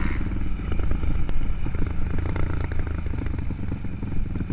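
Honda TRX450 quad's single-cylinder four-stroke engine running steadily, close to the microphone.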